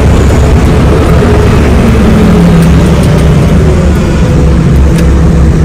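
Diesel engine of a loaded truck heard from inside the cab, running loud and steady as the truck rolls forward. Its note rises a little about two seconds in.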